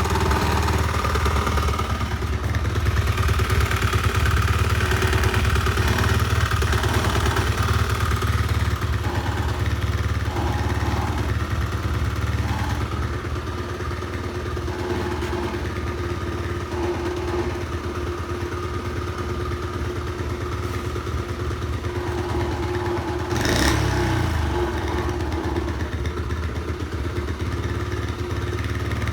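Honda Magna 50's 49 cc four-stroke single-cylinder engine running steadily through its stock exhaust. One short louder burst comes near the end.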